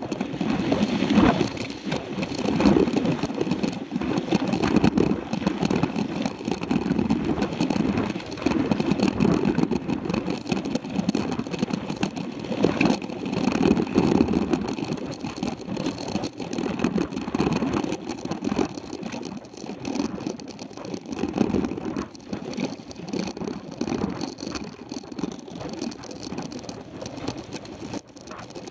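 Mountain bike riding over a rough dirt and gravel road, heard from a camera on the handlebar: continuous rumbling and jittery rattling that rises and falls in uneven surges.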